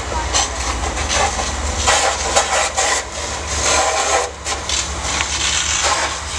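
A pickup truck burning: the fire's steady roaring hiss with a low rumble, broken by irregular crackles and pops.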